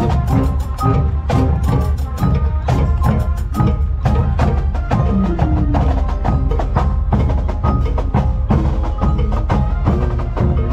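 Music with fast, dense percussion and short pitched notes.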